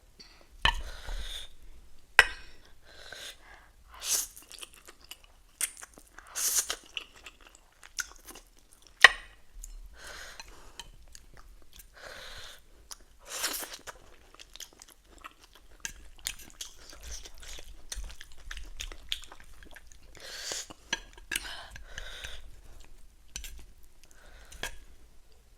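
Close-miked chewing and crunching of ramen, pork and lettuce in irregular bouts, with a few sharp clicks.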